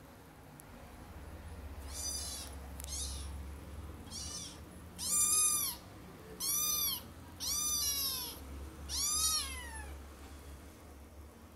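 A young kitten meowing repeatedly in high-pitched calls that each rise and fall: three softer meows, then four louder ones.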